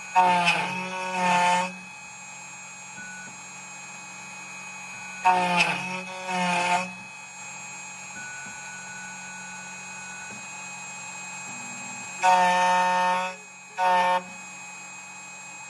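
CNC key cutting machine working on a key blank: its motors give a pitched, horn-like whine in four short bursts, the last one brief, with a steady low hum from the running machine between them.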